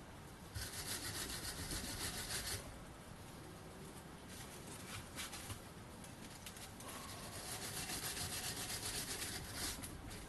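Hand wire brush scrubbing rust off the metal of an old lathe headstock in rapid back-and-forth strokes. It comes in two spells, with a quieter pause in the middle.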